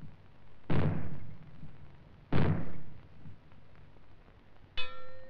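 Two maroon bangs, the second and third of the three-bang British fallout warning, each with a long rumbling tail, about a second and a half apart. Near the end a gong is struck once and rings on: the first of the three gongs that are the other form of the fallout warning.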